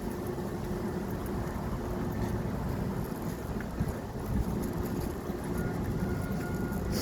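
Steady low rumble of road traffic, with a faint engine hum.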